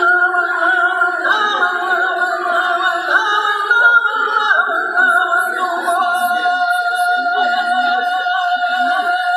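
Mapuche ulkantun song: singing with long held notes, one held steady through the latter half.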